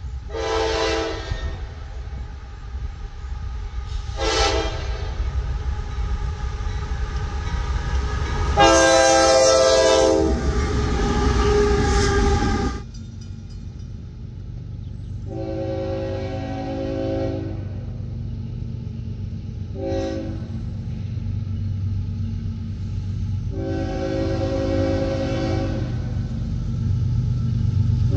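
Diesel locomotive air horns blowing chords over the low rumble of an approaching train: two short blasts, then a long one. After a cut about 13 seconds in, a second locomotive's horn sounds long, short, long, the warning pattern blown for a grade crossing, while the engine rumble grows louder as the train comes closer.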